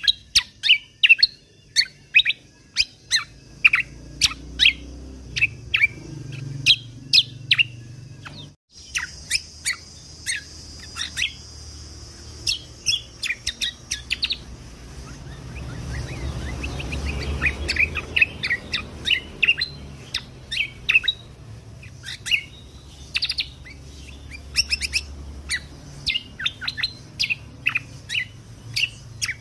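Kecial kombok (cucak kombo) songbird singing a fast run of short, sharp chirping notes, repeated in quick volleys, with a brief break about a third of the way through.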